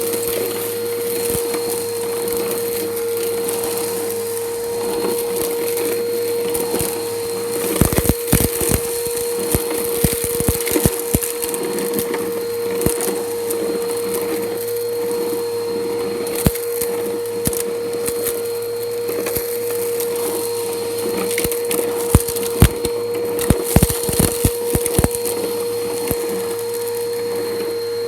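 Bissell PowerForce Helix upright vacuum running with a steady motor whine while sucking grit and debris off concrete, the pieces crackling and clicking as they rattle up through it. The crackling comes in thick clusters about eight seconds in and again about twenty-two seconds in.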